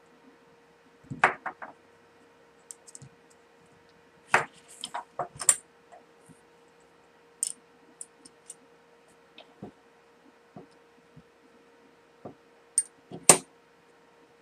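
Scattered clicks, clinks and knocks of small metal parts and tools being handled and set down on a workbench, over a faint steady hum.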